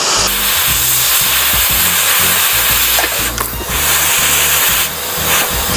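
Hot air rework station blowing a loud, steady hiss while a phone's storage chip and lower board layer are heated off. It briefly drops about three seconds in and again near the end. Background music with a bass line plays underneath.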